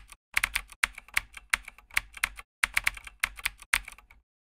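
Typing sound effect: rapid key clicks in short runs with brief pauses, as on-screen text is typed out letter by letter. It stops about four seconds in.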